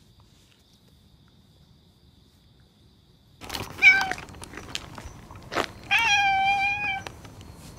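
Orange tabby cat meowing at close range: a short meow about four seconds in, then a longer meow held at a steady pitch about six seconds in. These are affectionate, attention-seeking meows from a friendly cat. A sharp click and some rustling come between them.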